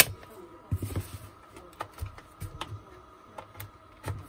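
Light handling clicks and knocks from an opened angle grinder and its parts being worked on: a sharp click right at the start, then scattered lighter clicks and knocks.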